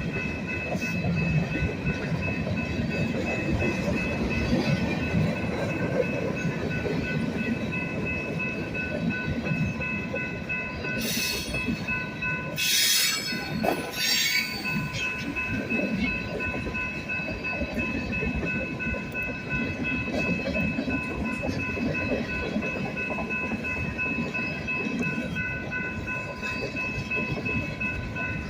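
Train cars rolling past at close range, a continuous rumble and clatter with steady high-pitched tones held over it. A brief, sharper hiss-like burst comes about halfway through.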